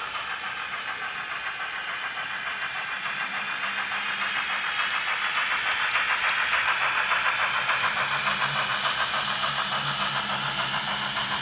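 An N-scale model train led by a Union Pacific 844 steam locomotive runs past, with a fast, even pulsing rhythm over a hiss. It grows louder as the train comes close, about halfway in, then eases off slightly.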